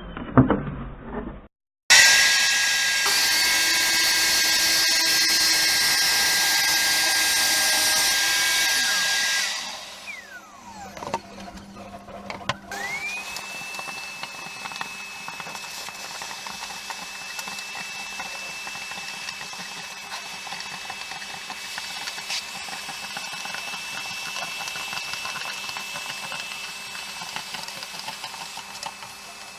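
Electric power tool making cuts: it runs loud with a steady whine for about seven seconds and then winds down. A few seconds later a motor spins up, its whine rising, and runs steadily and more quietly for the rest.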